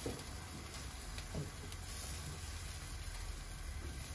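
Steady rumble and hiss of a commercial gas grill running, with faint sizzling of skewers cooking on it.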